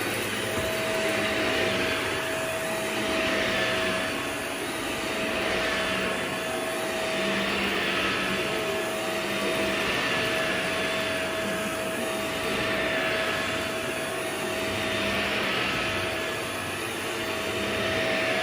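Vacuum cleaner running steadily: a constant motor hum under a rushing hiss that swells and eases every two to three seconds.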